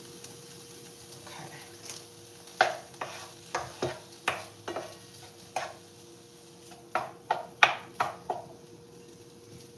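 Wooden spatula stirring sliced beef kielbasa, red pepper and shallot in a frying pan, knocking sharply against the pan a dozen or so times in two runs, over a low sizzle.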